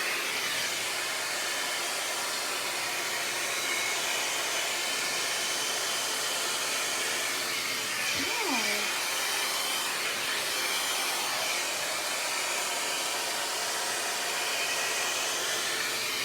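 Hot-air blow-dry brush running steadily on its high setting: a constant rush of air with a faint motor whine.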